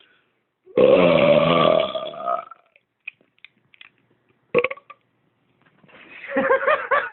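A man belching loudly once, a long low burp lasting about a second and a half, starting about a second in. A short sharp sound comes about four and a half seconds in, and near the end he starts laughing in short bursts.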